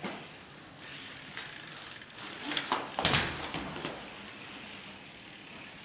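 BMX bike rolling on a hard floor, its rear hub ticking, with a cluster of scuffs and knocks about three seconds in.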